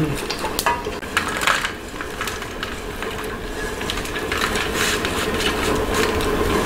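Dry-roasted large dried anchovies rustling and clicking as they are stirred in a pan with wooden spoons and then scraped out onto a tray with a spatula, over a steady low hum.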